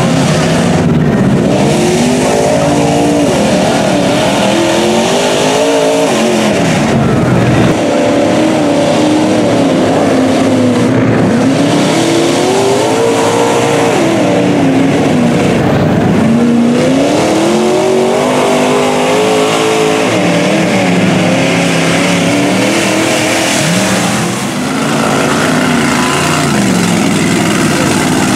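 Mud truck engines revved hard again and again as the trucks plow through a flooded mud pit, the pitch climbing and falling every few seconds over the steady noise of spraying mud and water.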